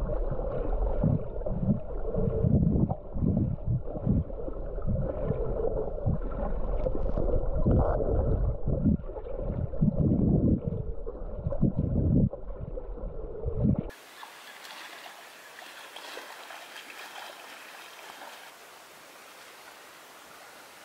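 Muffled underwater sound of moving water against a camera housing, with irregular low thumps and sloshing. About 14 seconds in it cuts abruptly to a much quieter, steady hiss of open air above the water.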